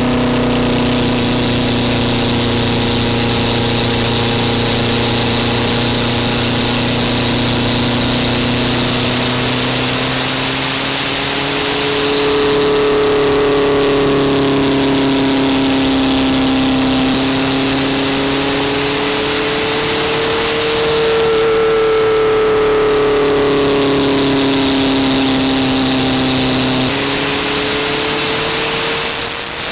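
VW Rabbit's 1.6-litre turbodiesel heard through its intake at the air filter, running steadily on the move with turbo whine, its pitch rising and easing a few times as the load changes. The turbo is a variable-vane unit driven by an Arduino on a freshly loaded tune.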